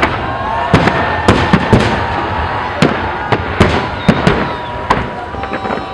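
Aerial fireworks shells bursting in a rapid, irregular string of sharp bangs, about a dozen in six seconds, over a continuous crackling din.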